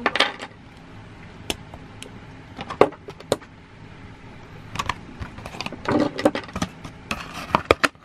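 Handling of a chrome marine alarm padlock, giving a few scattered light metallic clicks, then a busier run of clicks and crackling over the last few seconds as it goes into a clear plastic clamshell package. There is no alarm tone: the lock's alarm is broken.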